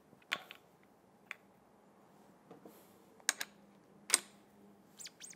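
Scattered light clicks and knocks, about six of them, as a Marzocchi MX Comp suspension fork is handled and turned over at a workbench, with a faint steady hum underneath.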